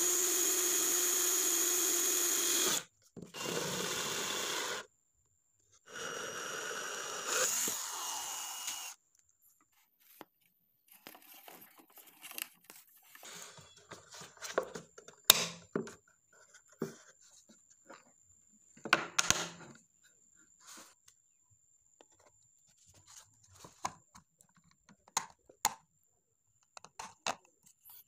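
Cordless drill with a stepped conical bit boring through a PVC pipe, in three steady runs of a few seconds each, the first the loudest and longest. Then scattered faint clicks and rubbing as parts are handled and a threaded fitting is set into the hole, with one sharp click about fifteen seconds in.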